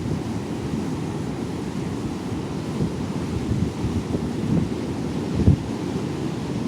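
Stormy Baltic Sea surf rushing under strong wind buffeting the microphone, with a louder gust thump about five and a half seconds in.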